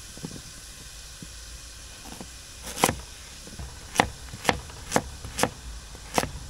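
Chef's knife slicing peeled carrots on a plastic cutting board: sharp chops about two a second, starting about three seconds in.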